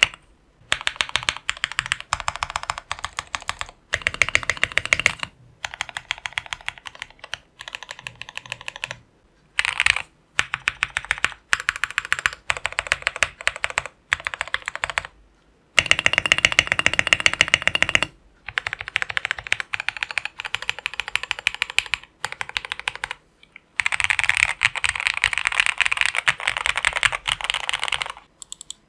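Fast typing on a mechanical keyboard with stock tactile brown switches, in runs of a few seconds broken by short pauses.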